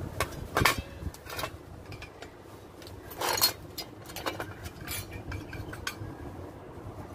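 Metal hand tools and parts clinking and knocking as they are handled on the ground: a few sharp clinks, the loudest about half a second in, and a short clatter about three seconds in.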